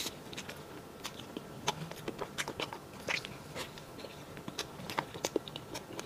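Close-miked mouth sounds of someone eating soft cream sponge cake: small wet smacks and clicks of chewing, coming irregularly.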